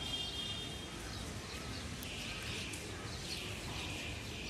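Birds chirping in quick, repeated short calls from about two seconds in, over a steady low outdoor background noise.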